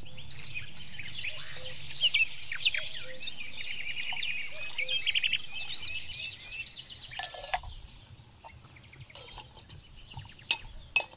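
Birds chirping and twittering, a busy chorus for the first half or so that thins out, with a few sharp clicks in the second half.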